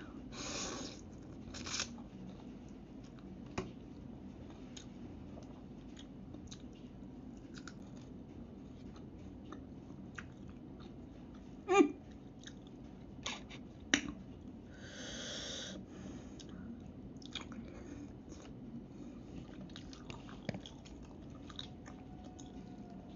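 Eating sounds of instant noodles: a slurp of noodles near the start, chewing, and a few sharp clicks of a metal fork against the plate.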